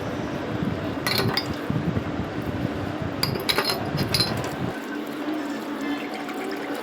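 Dishes being washed by hand under running tap water, with several sharp clinks of glass and crockery knocking together.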